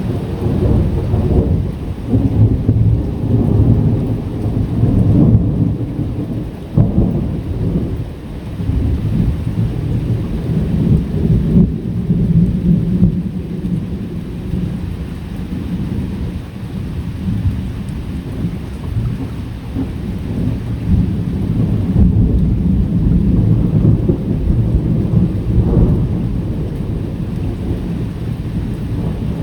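Thunder rumbling in long, low rolls that swell and fade several times over steady rain. A loud roll breaks in right at the start, and others build about halfway through and again near the end.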